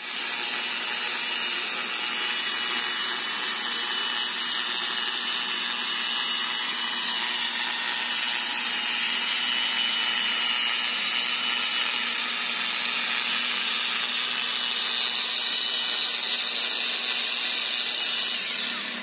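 Electric rotary polisher running steadily, spinning a small foam pad on a long extension shaft against car paint: a constant high motor whine over a loud hiss.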